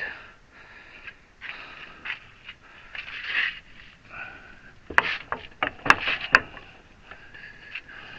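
Hand work on a hydraulic ram: rubbing and scraping, then three or four sharp knocks about five to six seconds in.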